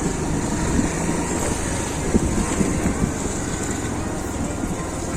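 Yamaha Ray ZR scooter's single-cylinder engine running steadily on the move, with wind rushing over the microphone.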